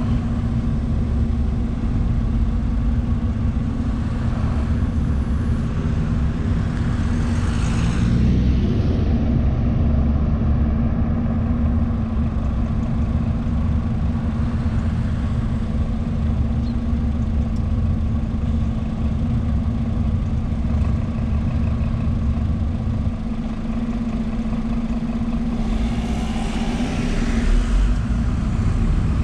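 Scania bus's diesel engine idling with a steady low drone. A car passes close by about seven seconds in, and another near the end.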